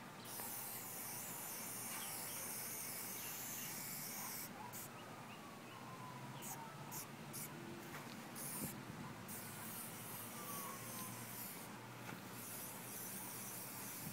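Aerosol spray paint can hissing in long and short bursts, stopping and starting as the nozzle is pressed and released.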